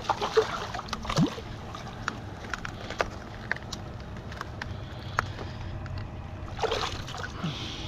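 A hooked snook splashing at the surface beside shoreline rocks, with water sloshing against the rocks and scattered sharp clicks throughout.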